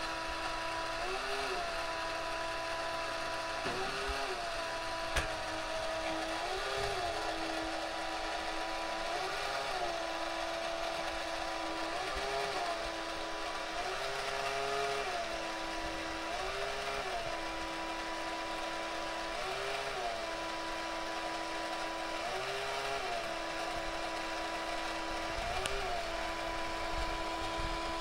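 Battery-operated 1988 Cheng Ching Toys Jumbo Jet CS-74 toy airliner running its motor and gear mechanism: a steady hum with a brief rise and fall in pitch every two to three seconds as the mechanism works the door and stair.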